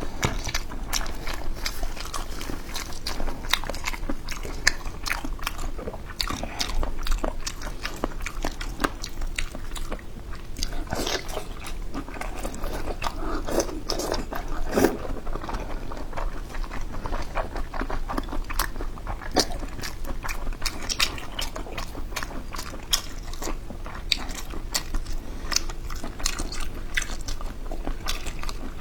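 A person biting and chewing spicy boneless chicken heads, with many small crunchy clicks running on steadily.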